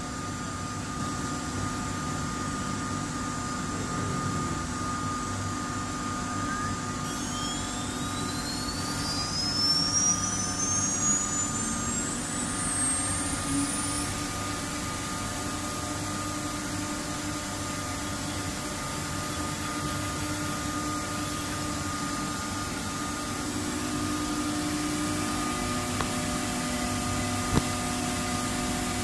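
STM1325CH CNC router running with a steady mechanical hum and fixed tones. About seven seconds in, a high whine climbs steadily in pitch for several seconds, then fades.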